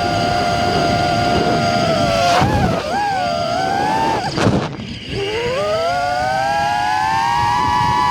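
FPV quadcopter's brushless motors whining in flight. The pitch holds steady, wavers and dips in the middle and cuts out briefly, then climbs steadily through the second half as the throttle is worked.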